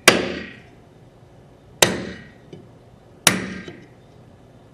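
Ball-peen hammer striking a steel punch held against a paintball marker's receiver: three sharp metallic strikes about a second and a half apart, each ringing briefly. The punch is knocking out the receiver's moulded battery-door panel, worked around its edge.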